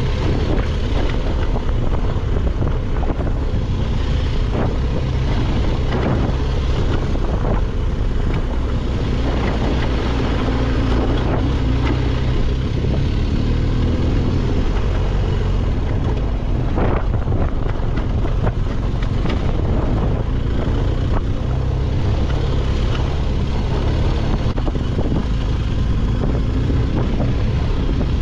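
BMW R1250GS boxer-twin motorcycle under way, its engine largely masked by steady wind buffeting on the microphone, with a few knocks.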